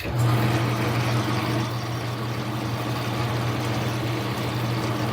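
Lathe switched on in high gear, forward: the motor and spindle start suddenly and run at a steady hum.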